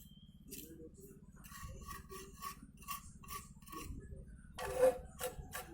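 Hand tool scraping or rasping at the pot's material in short, even strokes, about two or three a second, with one louder knock about five seconds in. A low steady hum runs underneath.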